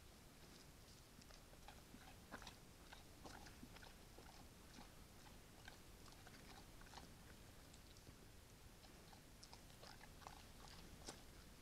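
Faint, irregular crunching and chewing: a brown bear eating bait close to the camera, heard as scattered short crunches over a steady hiss.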